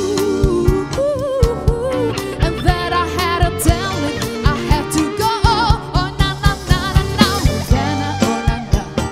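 A woman singing a pop song live with a small band: her voice carries the melody with vibrato over a drum kit keeping a steady beat and a strummed electric guitar.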